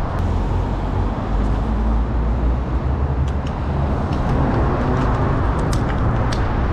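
Wind rumbling on the microphone and tyre and road noise from a bicycle riding in city traffic, with scattered light ticks.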